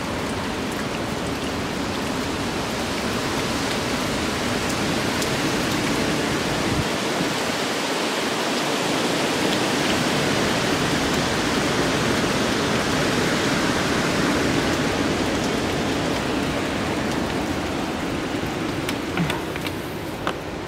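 Heavy, steady hurricane rain with wind, a continuous wash of noise that swells a little through the middle. A few sharp clicks come near the end.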